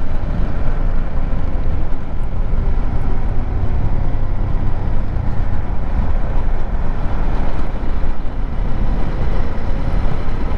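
KTM 390 Adventure's single-cylinder engine running steadily under way, mixed with wind and tyre noise on a gravel road.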